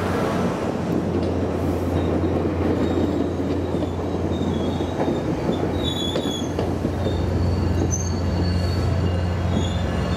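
SunRail commuter train, a MotivePower MP32PH-Q diesel locomotive with bilevel coaches, passing close by. There is a steady low diesel drone and a rumble from the coaches that is strongest in the first few seconds. Thin, high wheel squeals come in from about three seconds in.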